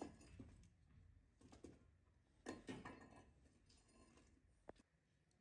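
Near silence, with a few faint, brief sounds.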